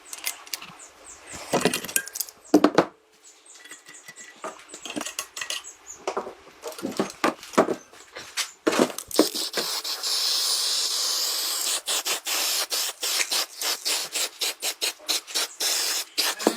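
Hand tool work on a car body: scattered knocks and scrapes, then, about nine seconds in, a steady rasping hiss that breaks into quick repeated strokes, about four a second.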